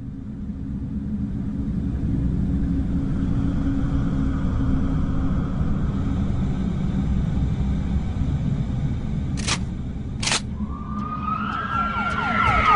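A steady low rumble with two sharp clicks about two-thirds of the way through. Near the end a siren starts wailing in, its pitch wavering and falling.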